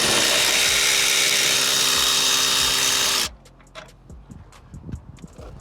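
Electric power drill spinning steadily at one speed for about three seconds, then cutting off, as it runs out a bolt. Light clicks and taps of metal parts follow.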